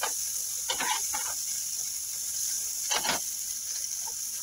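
Chopped onions sizzling in butter on a flat tawa griddle as they soften, with a metal spatula scraping and stirring across the pan several times; the loudest scrape comes about three seconds in.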